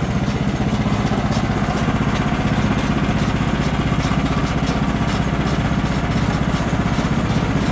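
Portable band sawmill's gas engine running steadily, with an even hiss from the band blade cutting a slab off a log.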